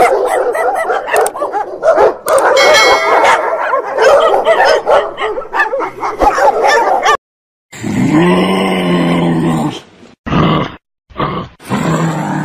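A litter of golden retriever puppies whining and yipping all together, many high calls overlapping, for about seven seconds. After a short break come a kangaroo's lower, drawn-out grunting calls, ending in a few short grunts.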